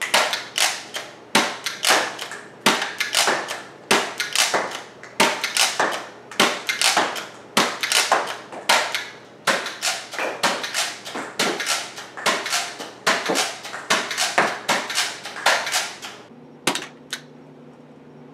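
A Total Air X-Stream Rotator X-8 revolver spring blaster, orange plastic, being primed and fired again and again: a quick string of sharp plastic clacks and spring snaps, two or three a second, for about sixteen seconds. Near the end come a few single clicks over a low steady hum.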